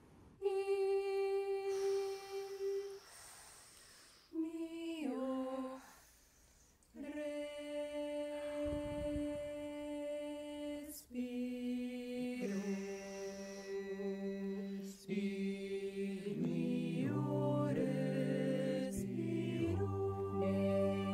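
A cappella mixed choir singing wordless held notes in short phrases: a single line at first, then more parts enter and build into sustained chords, with low voices joining near the end.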